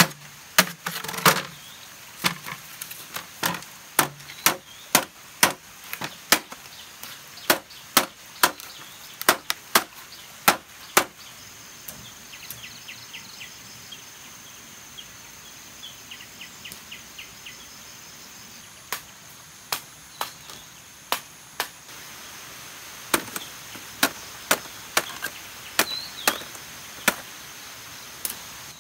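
Chopping with a blade into bamboo: sharp strikes about two a second, breaking off after about eleven seconds and resuming, somewhat lighter, near the twenty-second mark.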